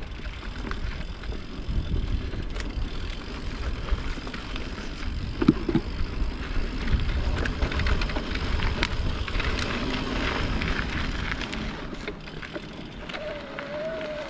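Mountain bike riding a dirt trail: a steady low rumble of tyres and wind, with many quick clicks and rattles from the bike over the bumps.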